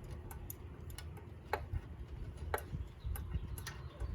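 Scattered light metallic clicks and ticks at uneven intervals from hand tools working bolts loose.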